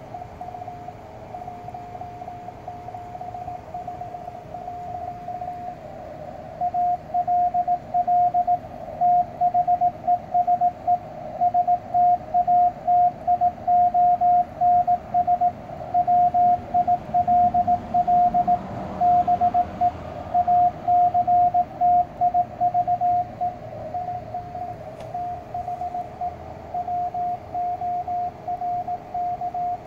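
Morse code tone from a Yaesu ham transceiver's speaker: W1AW's ARRL bulletin in CW, a single steady-pitched tone keyed into dots and dashes over faint band hiss. It grows louder about six seconds in and drops back near the last quarter.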